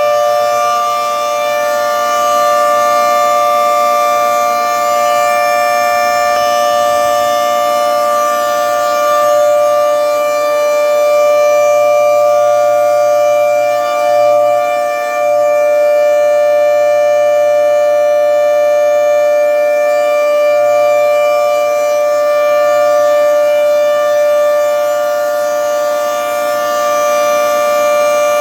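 Federal Signal 3T22 three-tone rotating outdoor warning siren sounding its steady Alert signal: a loud, held chord of several tones that stays at one pitch, swelling and dipping slightly in loudness.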